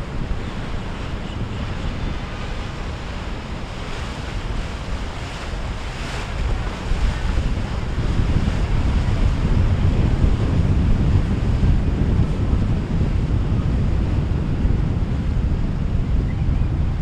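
Wind noise on the microphone over the wash of water from passing boats' wakes, with no clear engine note; it gets louder about eight seconds in.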